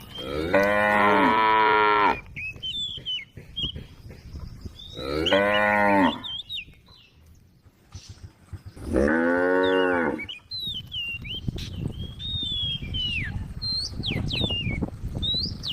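A cow mooing three times, each a long, drawn-out call lasting one to one and a half seconds. The calls come near the start, about five seconds in and about nine seconds in, with gaps of several seconds between them.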